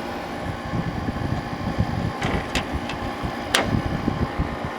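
Older Kenmore 5000 BTU window air conditioner, a Goldstar build with LG parts, running with its compressor and fan motor humming steadily, with a few sharp clicks in the second half.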